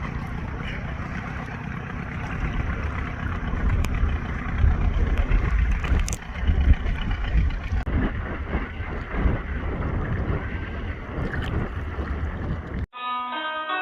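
Beach ambience: surf washing on the shore with wind buffeting the microphone in a heavy low rumble. Near the end it cuts off abruptly into bell-like music.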